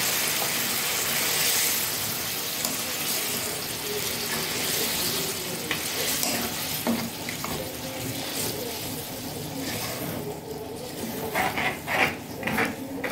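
Hot ghee tempering sizzling in a metal kadhai as water is stirred into the dal. The sizzle is loudest at first and dies down, with a ladle knocking and scraping against the pan a few times.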